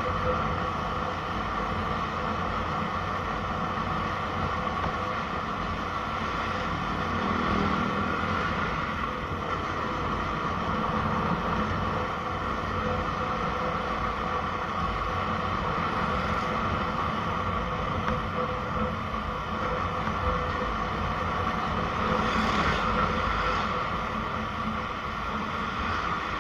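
A vehicle's engine running steadily while riding along a street, with continuous road and wind noise.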